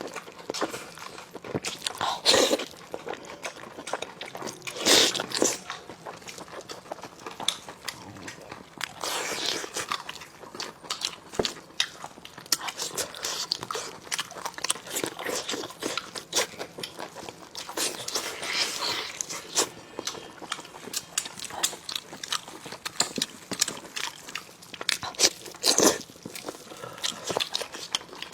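Close-miked biting and chewing of braised spicy lamb chops, with irregular sharp crunches of the cartilage being bitten through.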